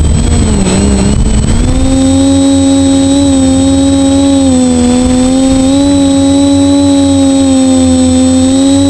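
A quadcopter's brushless motors and propellers whining loudly, on worn-out 2208 motors. The pitch dips under a second in, climbs back up, then holds fairly steady with small rises and falls as the throttle changes.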